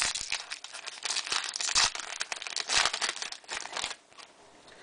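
Foil trading-card pack wrapper crinkling and tearing as it is opened, in a run of crackly bursts that stop about four seconds in.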